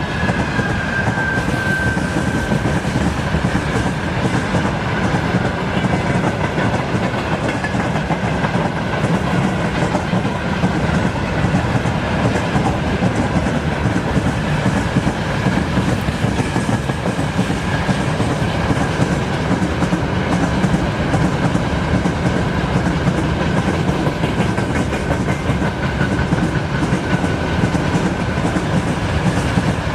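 Long freight train rolling steadily past: a continuous rumble and clatter of wagon wheels on the rails, with a faint high whine running through it.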